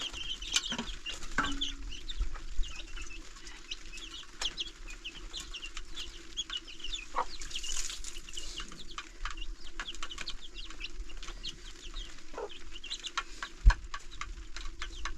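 Chickens clucking with many short high calls, among scattered clicks and a single sharp knock near the end.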